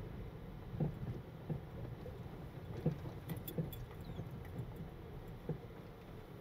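Car driving along a road: a steady low rumble of road and engine noise, with a handful of short knocks and a few faint clicks as the car rides over the road surface.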